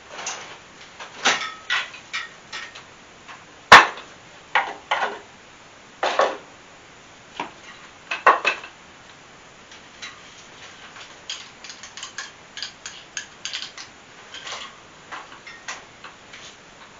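Scattered metallic clinks and knocks from the steel chandelier and its fittings being handled. One sharp knock about four seconds in is the loudest, and lighter clicks come in quick runs later on.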